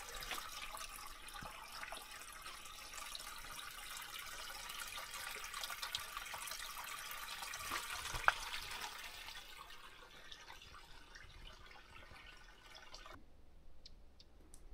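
A gentle trickle of spring water running from a wayside spring fountain, a steady light splashing that thins out after about ten seconds. One sharp click about eight seconds in.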